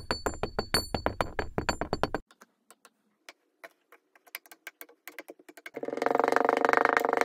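Kinetic sand cubes dropping into a glass make a quick run of soft thuds and taps, with light ringing from the glass, followed by a few faint crackles. Near the end, a clear acrylic press squishes the sand down with a loud, dense, even crackle.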